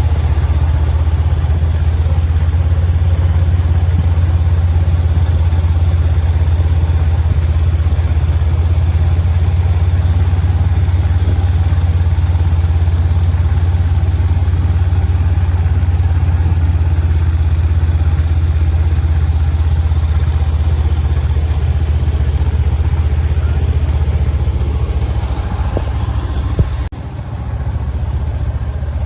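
A vehicle engine runs steadily with a deep, even hum. A short knock comes near the end, after which the hum briefly drops.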